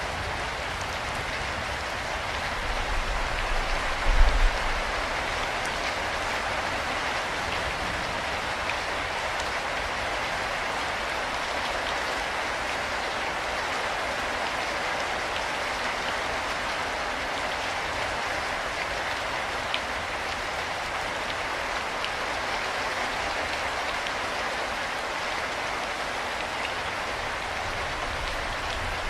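Steady rain falling, an even hiss of many drops. A brief low rumble swells and fades about four seconds in.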